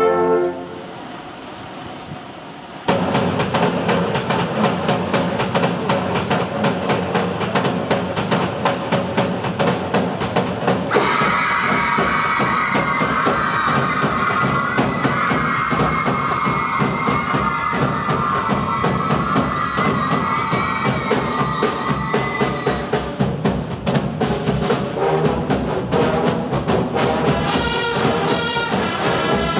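High school wind band of brass and percussion playing live. A held chord breaks off just after the start and a short, quieter lull follows. About three seconds in, the drums launch a fast, steady beat. From about eleven seconds in, the band adds a sustained melody over it.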